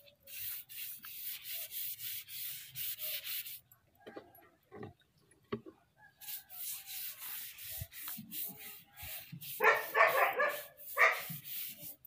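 Quick back-and-forth strokes rubbing across a wooden board, about three a second, in two runs with a pause between. Near the end, a louder sound with a pitch comes twice.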